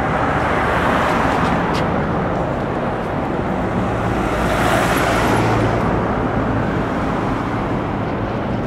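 Daytime road traffic on a multi-lane boulevard: a steady wash of tyre and engine noise, swelling as a vehicle passes close about four to six seconds in.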